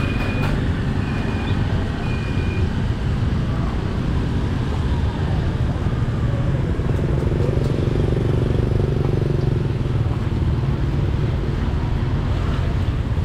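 Steady street traffic: engines running and passing in a continuous low rumble. A few short high beeps come in the first couple of seconds.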